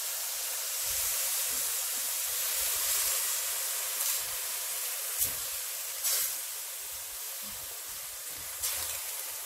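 Water hitting minced beef in a hot stainless-steel wok, hissing and steaming steadily, with a few sharp scrapes of a spatula against the pan.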